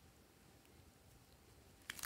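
Near silence, then near the end glossy slime starts to crackle and squish as hands press into it.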